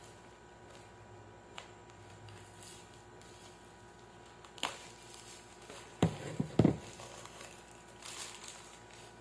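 Handling noise from unwrapping yarn: faint crinkles of plastic packaging and a few light clicks, then a couple of louder dull thumps about six seconds in as things are knocked or set down.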